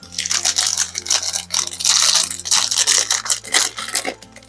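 Thin plastic packaging crinkling and tearing as a blind-box figure is unwrapped by hand: dense, irregular crackles that stop just before the end. A soft background music bed runs underneath.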